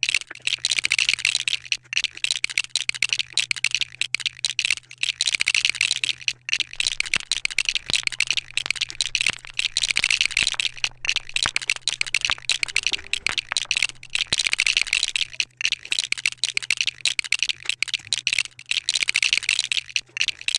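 Plastic Lego pieces rattling and clicking in quick, continuous succession as a set is built, over a faint steady electrical hum.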